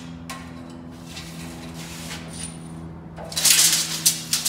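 Steel tape measure being pulled out along a steel tube, its blade scraping and rattling, with light metal clicks; a loud scraping rush about three and a half seconds in, then a few sharp clicks. A steady low hum runs underneath.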